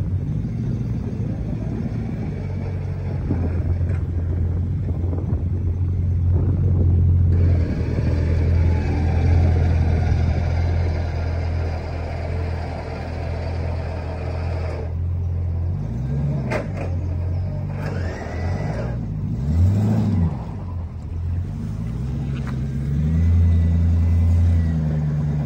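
Old Land Rover Discovery's engine working under load as it tows a stuck Mitsubishi Shogun through deep floodwater on a tow rope: a steady low engine note, with the revs rising and falling several times in the middle and a louder stretch near the end.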